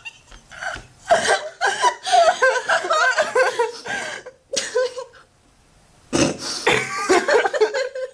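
A woman laughing hard in bouts, her voice wavering in pitch. It breaks off about five seconds in, then she laughs again.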